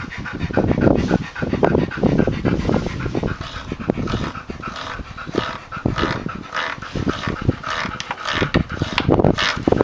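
A dog panting close by, a quick run of short noisy breaths, with some small clicks and knocks mixed in.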